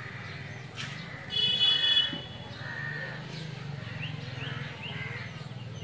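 Outdoor ambience of small animals calling: short chirps repeating over a steady low hum. About a second and a half in, a loud high-pitched call sounds for under a second.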